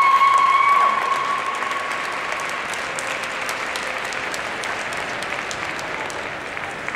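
Audience applauding, louder for about the first second and then settling to steadier, lighter clapping. A steady high tone is held over the applause for the first two and a half seconds or so.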